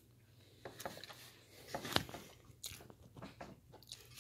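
A person biting and chewing food close to the microphone, with irregular short crunching clicks, the sharpest about two seconds in.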